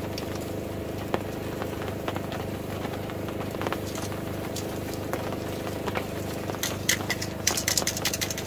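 Wood fire crackling under a wire grill grate, with clicks of metal tongs against the grate as steaks are moved, over a steady low mechanical hum. A quick run of crackles and clicks comes near the end.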